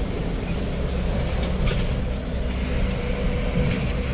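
Steady low rumble of a vehicle on the move: engine and road noise while driving, with a few brief hisses.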